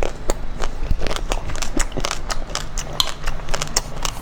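Chocolate-coated ice cream bars being bitten and chewed close to the microphone, the crisp chocolate shell cracking in a quick, irregular run of sharp snaps.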